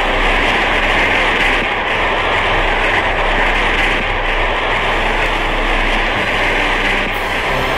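A steady, loud rushing noise with no tune or pitch, running evenly without a break.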